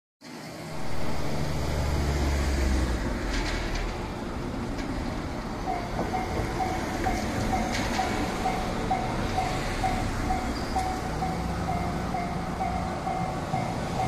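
Road traffic noise, then about six seconds in a railway level crossing's warning bell starts, ringing about twice a second: the signal that a train is approaching and the barriers are coming down.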